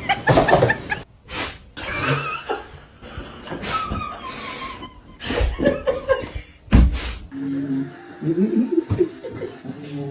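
People laughing and chuckling, with bits of speech, across several short clips cut abruptly one after another.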